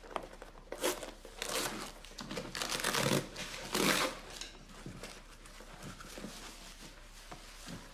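Paper packaging being torn and crumpled open, in several short rustling bursts.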